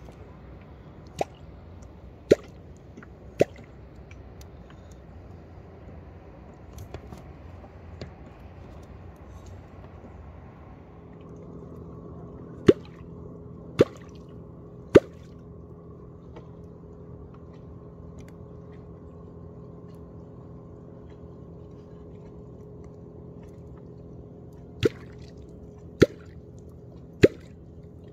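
Catfish clonk struck into the water in three sets of three sharp strokes, about a second apart within each set, the sets roughly twelve seconds apart. A steady low hum comes in about eleven seconds in.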